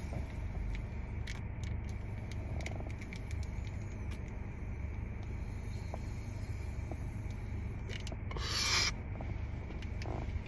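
A long, quiet inhale from a vape cartridge pen, heard as a faint hiss over a steady low rumble inside a car. About eight seconds in comes one short, sharp breath.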